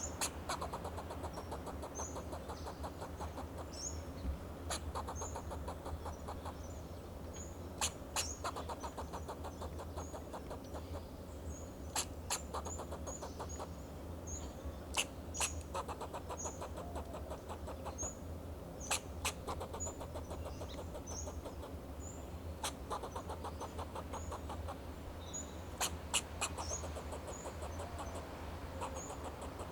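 Fox squirrel giving alarm calls: sharp, short barks at irregular intervals of one to a few seconds, among short high chirps, over a steady low hum.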